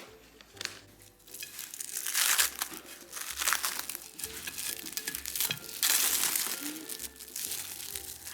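A wrapping sheet crinkling and rustling as it is handled, in several loud swells.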